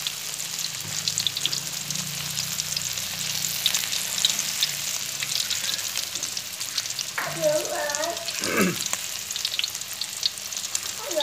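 Slabs of skin-on pork belly deep-frying in hot oil in a wok: a steady sizzle with many small crackles as the skin crisps.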